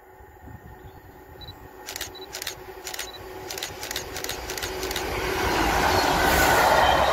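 Class 66 diesel locomotive's two-stroke V12 engine and wheels, hauling a rake of coaches on the approach and pass: the rumble grows steadily louder and is loudest as the locomotive goes by near the end. A run of sharp clicks comes in the middle.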